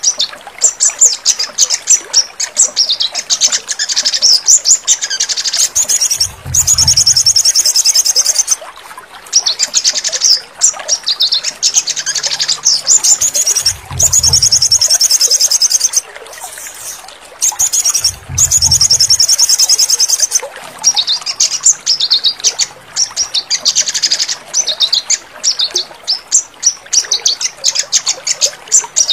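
A sogon songbird singing long runs of rapid, high chattering trills, one phrase after another. A short low rumble sounds under the song three times, about 6, 14 and 18 seconds in.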